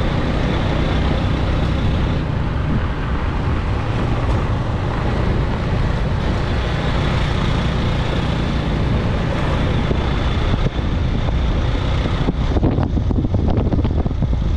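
Steady road and engine noise of a moving vehicle. About twelve seconds in it becomes choppier and rougher.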